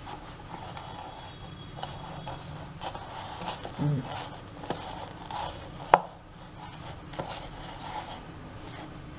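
A spoon scraping and stirring crumbly wheat-and-rice-flour dough in a plastic bowl, in irregular strokes, with one sharp knock about six seconds in.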